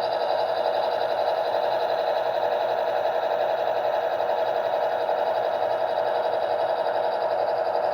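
Sound decoder of an HO-scale Athearn Genesis P42 model locomotive playing its diesel engine sound through its small onboard speaker, running steadily with a thin, tinny tone.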